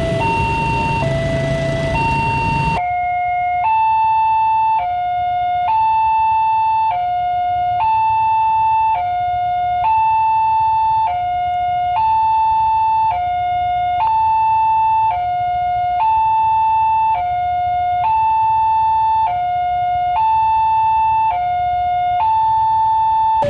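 Railway level-crossing warning siren sounding a repeating two-tone high-low call, switching pitch about once a second. About three seconds in, the background noise drops away and the siren sounds cleaner.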